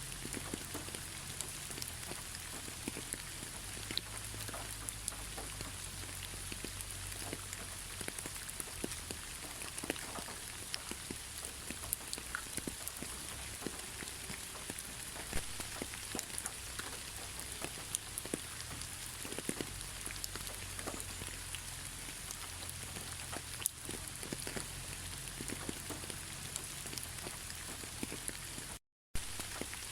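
Steady rain falling, with many separate drops ticking on a surface over an even hiss and a faint low hum underneath. The sound cuts out for a split second near the end.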